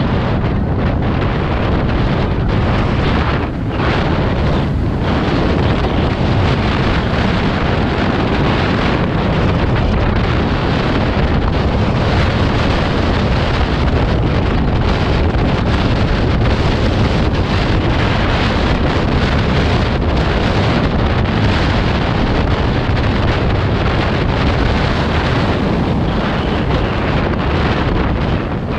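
Heavy wind buffeting the microphone while travelling at road speed, with a steady vehicle rumble underneath.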